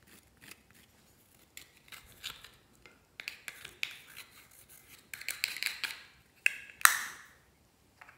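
A small metal-tipped tool scraping and digging pressed blush out of a plastic compact, in groups of short scratchy strokes as the powder crumbles. There is a sharp knock about seven seconds in.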